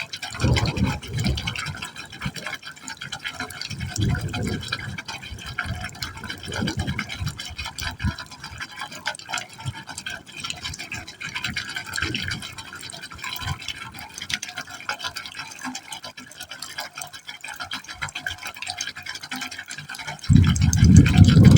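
Water pouring into a pipe opening, splashing steadily with irregular deep gulping surges as it drops into the pipe, and a louder surge near the end.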